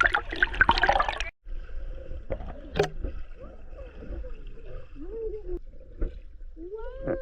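Water splashing and gurgling around swimmers drifting in a current, loudest in the first second, then breaking off briefly and going on lower and more gurgling.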